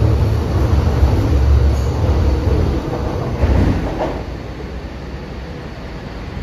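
MTR M-train electric multiple unit pulling out of the platform: a loud low rumble from the moving cars that fades about four seconds in as the last car passes and draws away.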